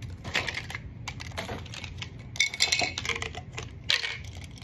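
Stiff clear plastic toy packaging crinkling and clicking in irregular bursts as it is pried open by hand and a toy monster truck is pulled out; the loudest crackles come about halfway through and near the end.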